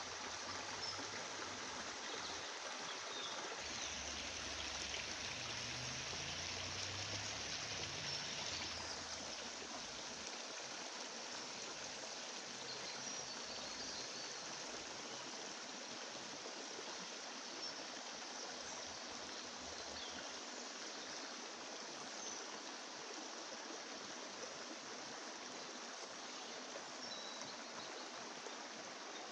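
Steady rushing noise like running water, even and unbroken, with a few faint high chirps over it.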